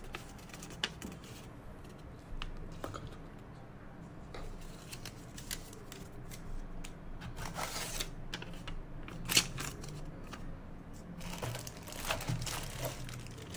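Paper rustling and light scattered clicks as a folded warranty card and paper slip are handled and unfolded. Near the end, a plastic bag crinkles as the bagged power cable is taken from the cardboard tray.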